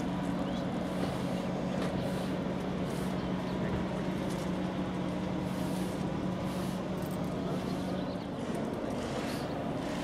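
An engine running at a steady idle, an even low hum that drops away near the end.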